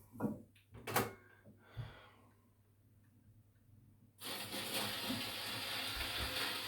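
A few clicks and knocks of handling, then about four seconds in the needle of an HMV 163 acoustic gramophone is set down on a spinning 78 rpm record and steady surface hiss from the lead-in groove starts suddenly.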